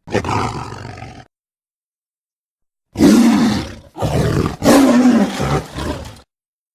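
Tiger roaring: a short rough call, then after a silence two longer, loud roars back to back, each rising and falling in pitch.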